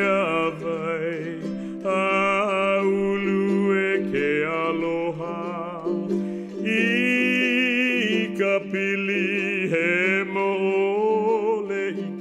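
Music: a voice singing long held notes with strong vibrato over steady string accompaniment.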